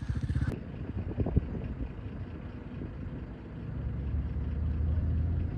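A motor vehicle engine running steadily at low revs: a low rumble that grows a little louder about four seconds in.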